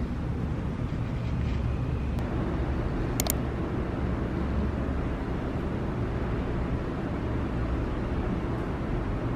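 Steady low rumble with a hiss of background noise, and two faint clicks about two and three seconds in.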